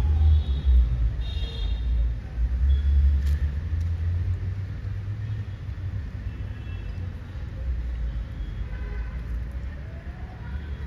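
Low, uneven rumble, loudest over the first four seconds, with a few faint high chirps above it.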